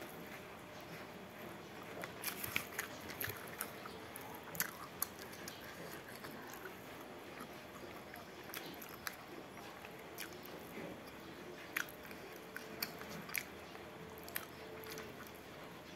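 Close-miked chewing of rice and fish, with irregular wet mouth clicks and smacks, and fingers squishing rice against a banana leaf.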